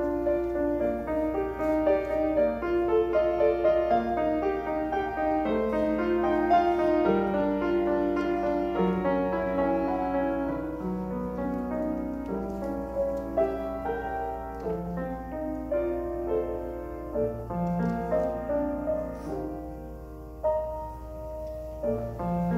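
Grand piano played solo: a classical student piece of steady, overlapping notes, growing softer in the second half.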